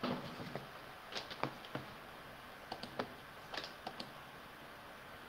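Faint, irregular clicks and taps from someone working a computer at a desk, about a dozen spread unevenly across the span, over a low steady hiss.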